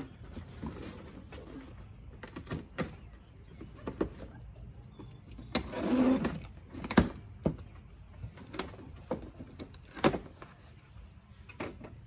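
Cardboard cases and packaged goods being handled and opened: scattered knocks, thuds and rustling, with the loudest handling about six to seven seconds in and another knock about ten seconds in.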